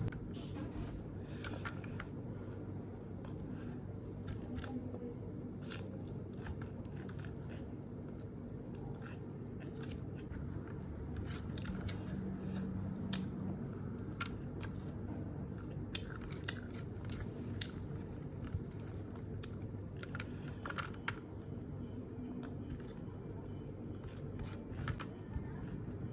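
A person chewing and biting food close to the microphone, eating chicken and rice, with many small scattered clicks over a steady low room hum.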